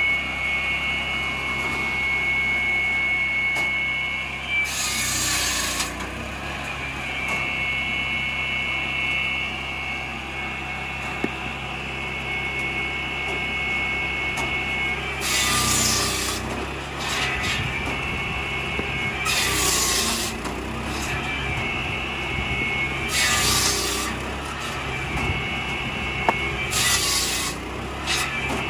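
A 13 hp petrol-engined log saw runs steadily, its circular blade whining. About six times a log is pushed through the blade: each cut is a loud burst of cutting noise about a second long that breaks into the whine. The first cut is followed by a long pause, and the later cuts come every three to four seconds.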